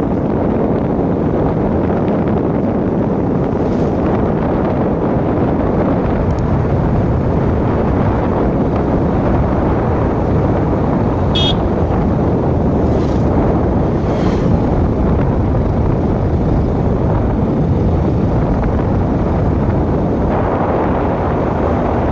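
Steady wind rush buffeting the microphone over the road noise of a moving vehicle, most likely a motorcycle. About eleven seconds in, a brief high-pitched beep sounds.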